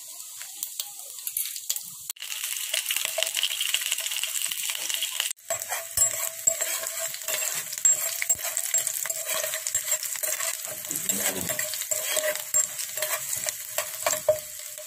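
Cumin seeds and garlic cloves sizzling and crackling in hot mustard oil in a kadai, while a steel spoon stirs them and scrapes against the pan.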